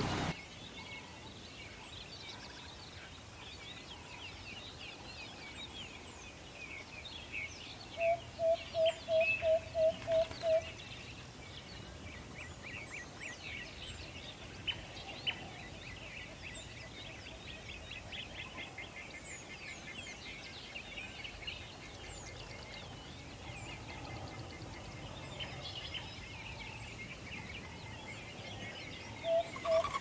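Chorus of birds with many overlapping high chirps and trills. About eight seconds in, and again near the end, a louder run of about eight evenly spaced lower notes, about three a second, stands out.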